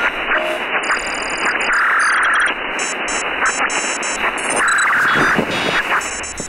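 Sci-fi sound effects: a dense, harsh wash of noise with an alarm-like tone swelling twice and rapid electronic beeping high above it.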